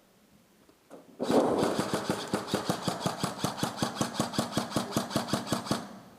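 Airsoft gun firing a long full-auto burst of about five seconds, at roughly seven shots a second, preceded by a single click.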